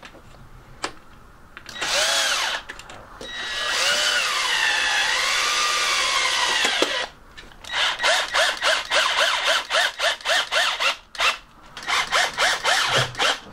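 Ryobi 12V cordless drill driver driving screws through a blind's metal side channel into wall fixings. A short spin comes about two seconds in, then a longer run whose pitch sags and recovers, then a string of short trigger bursts, about three or four a second.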